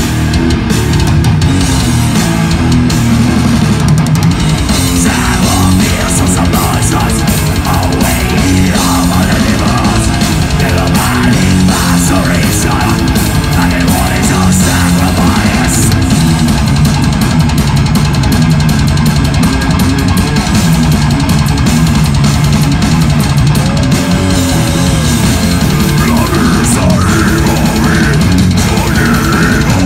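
Blackened death metal band playing live at full volume: heavy distorted electric guitars over a drum kit, heard from the crowd in front of the stage.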